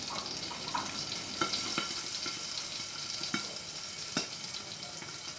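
Hot cooking oil frying in a pan under a perforated metal splatter lid: a steady sizzle with scattered short pops.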